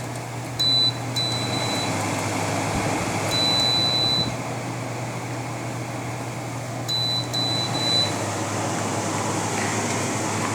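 Frigidaire FRA123BU1 12,000 BTU window air conditioner running, its fan blowing steadily over a low hum. Several high electronic beeps sound over it: two in the first two seconds, a longer one near four seconds, and three quick ones near eight seconds.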